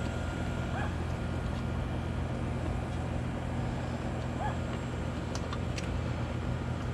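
A steady low mechanical hum under a constant hiss, with two faint short chirps and a few light clicks about five and a half seconds in.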